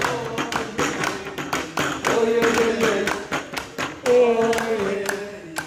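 A voice singing long, bending notes over a quick, steady beat of hand claps and taps.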